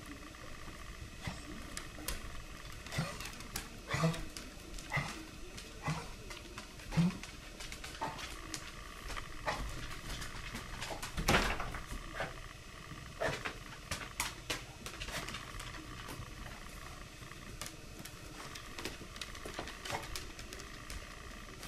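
A pet coughing: a run of short, sudden coughs, the loudest about eleven seconds in, with smaller hacks scattered after.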